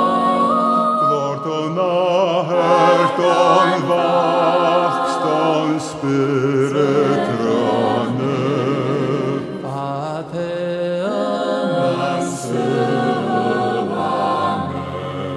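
A choir of mixed male and female voices singing a slow hymn, with vibrato on the held notes.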